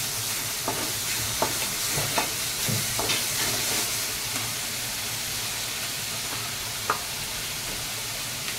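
Onion and tomato paste sizzling in hot oil in a kadhai, with a wooden spatula scraping and knocking against the pan in a run of strokes over the first three seconds and once more near the end.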